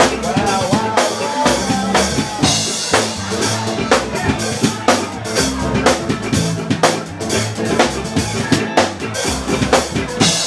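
Soul band playing live: a drum kit beat with bass drum and snare rimshots over a moving bass line, with a pitched melodic line above.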